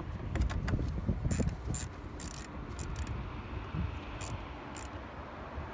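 Ratchet and 10mm socket tightening a towing mirror's mounting nuts: scattered, irregular clicks over a low background rumble.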